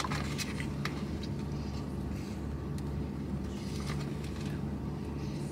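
Steady low hum of a car idling, heard from inside the cabin, with a few soft clicks from a person chewing a mouthful of cookie.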